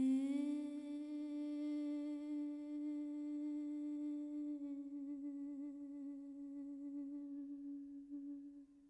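A woman's voice holds one long sung note without accompaniment. It slides up slightly at the start, takes on a vibrato about halfway through and fades out near the end.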